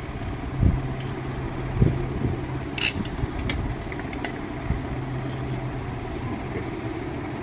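Steady mechanical background hum, with a couple of soft knocks in the first two seconds and a few light metallic clicks around the middle as starter-motor parts (armature, solenoid and brush-plate assembly) are handled and fitted together.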